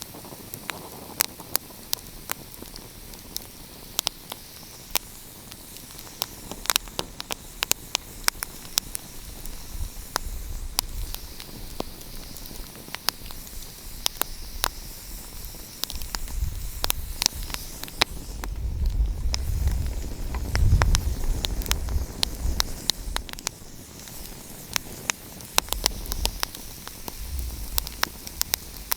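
Wood fire crackling, with frequent sharp pops and snaps over a steady hiss. A low rumble swells up around the middle and dies away again.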